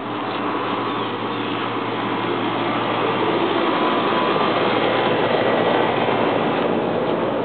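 Rushing noise of a passing vehicle, building gradually to its loudest about five to six seconds in, then easing off slightly.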